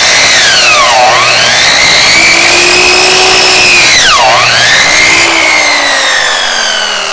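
Electric chop saw whining at full speed as it cuts a bone-in New York strip loin. Its pitch drops sharply twice as the blade bogs down in the meat and bone, then falls steadily near the end as the motor winds down.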